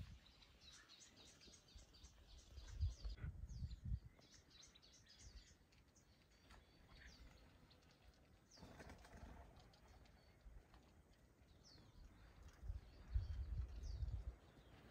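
Faint chirping and twittering of small birds, with a low rumble about three seconds in and again near the end.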